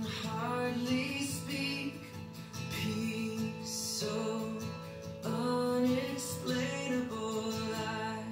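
Background music: a worship song with a woman singing over instrumental accompaniment.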